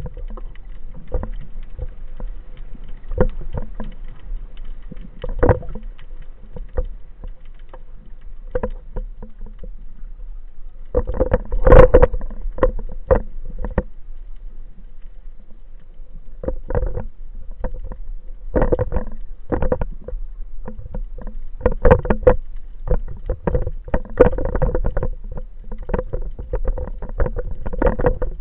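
Underwater sound picked up by a diver's camera during a spearfishing dive: a low muffled rumble of moving water with irregular clicks and knocks, a burst of louder knocks about twelve seconds in and more in the second half, over a faint steady hum.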